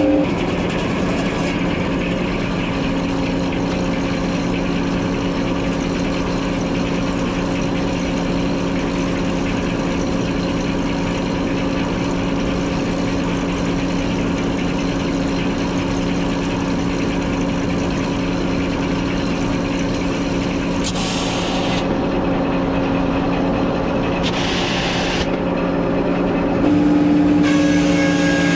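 An engine running steadily at a constant speed, a steady hum that does not change pitch, growing slightly louder near the end.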